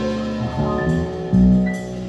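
Live band playing an instrumental passage of a slow ballad: sustained electric keyboard chords over bass guitar notes and light drums, with no voice.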